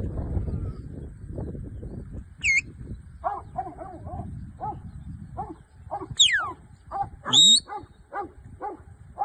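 Working sheepdog barking in a steady run of short barks, about two a second, starting about three seconds in. A few high, quickly falling whistle-like calls are heard over it, and there is low wind rumble before the barking starts.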